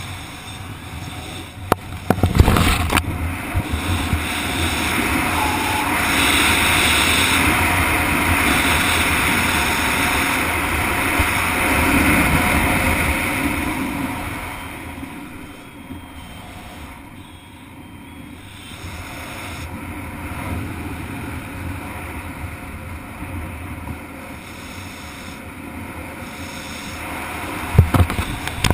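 Wind rushing over a head-mounted camera's microphone during a parachute canopy descent. It swells louder for several seconds, then eases off, with a few sharp knocks about two seconds in and again near the end.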